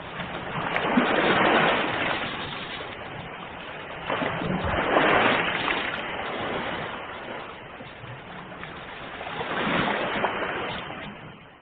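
Ocean waves breaking on a shore, three waves about four to five seconds apart, each surging up and then washing back.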